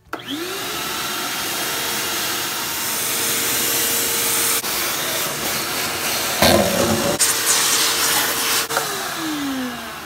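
Bauer 6-gallon, 4 peak horsepower wet/dry shop vacuum switched on, its motor whine rising as it spins up and then running steadily under suction. About six seconds in there is a louder burst of rattling as debris from the bench is sucked up the hose. Near the end it is switched off and the motor winds down with a falling whine.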